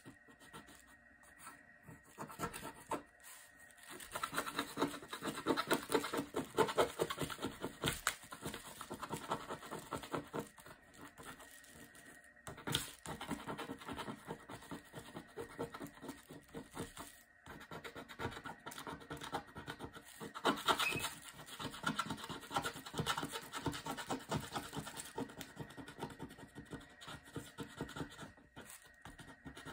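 Rapid repeated scratching and rubbing of a thin wooden stick and a small hand-held block across the surface of a printed picture board. The strokes come in quick runs, heavier for a few seconds at a time and then lighter.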